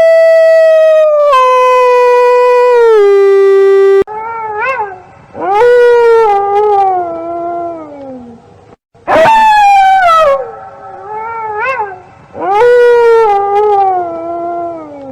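Wolf howling: one long, loud howl held steady that drops in pitch in two steps, then three more howls that each rise sharply and slide slowly down, with short warbling notes between them.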